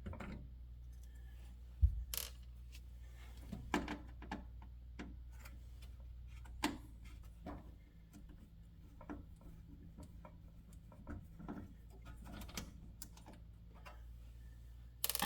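Scattered light clicks and taps of hand tools and small parts being handled while a circuit board is worked loose from an electric range's control panel, over a low steady hum. A sharper knock comes about two seconds in, and a quick run of clicks near the end.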